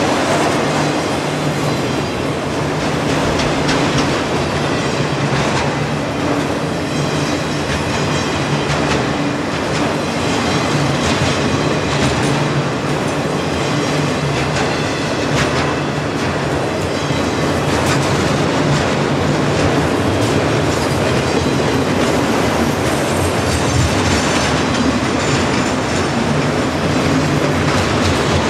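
Freight train of autorack cars rolling past close by: a steady rumble of steel wheels on rail, with scattered clacks as the wheels pass over the track.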